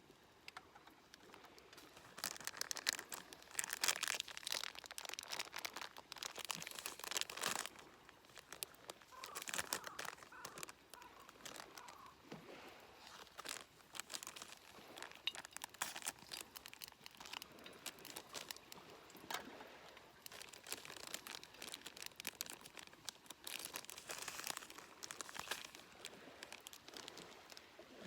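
Crackling and sizzling from meat grilling over a wood campfire: dense, irregular popping that swells louder and fades back several times.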